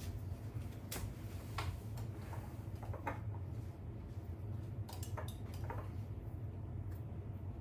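A spoon clinking against a jar and scraping on bread as tomato sauce is spooned and spread onto sandwich thins: several light clicks and taps, scattered unevenly, over a steady low hum.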